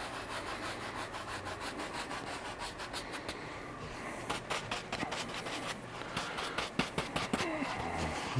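A wide bristle brush scrubbing quickly back and forth through wet oil paint on a canvas, in fast even strokes. About four seconds in, the strokes stop and give way to slower, uneven scrapes as the brush is wiped on a roll of paper towel.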